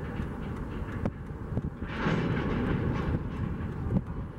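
Train rolling past: a steady low rumble with irregular clicks and knocks from the wheels. A louder hissing swell comes about two seconds in and lasts about a second.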